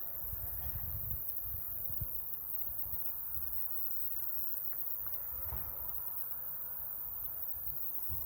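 Insects chirring in a steady, very high-pitched drone, with low rumbles and a few soft thumps on the microphone.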